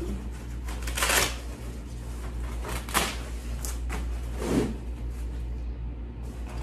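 Valco Baby Snap Duo Trend stroller seat being handled in its reclined position: a few short rustles and clicks from the seat fabric and recline fittings, the clearest about one and three seconds in, over a steady low hum.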